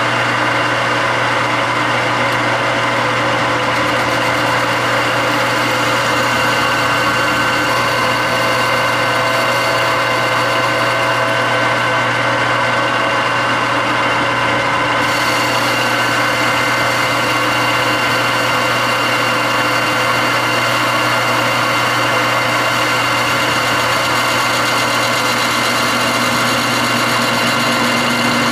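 Metal lathe running steadily while taking a facing cut across a tractor rear axle bearing hub held in a four-jaw chuck. A higher hiss joins about halfway through.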